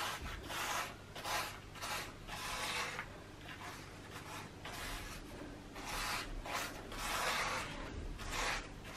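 A rubber-gloved finger rubs along the mortar joints between brick slips, pressing in and smoothing the drying mortar pointing. It makes repeated short rubbing strokes, about one or two a second.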